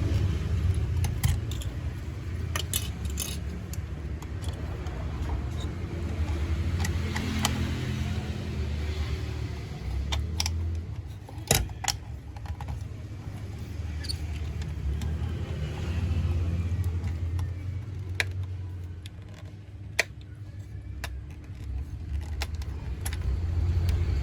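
Plastic toy aeroplane parts being handled, with scattered sharp clicks and taps as pieces knock and snap together, over a steady low rumble that swells and fades.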